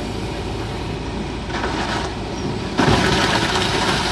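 Heavy diesel demolition machinery running steadily. About three seconds in, the sound becomes suddenly louder and noisier, with scattered knocks, as material is being broken.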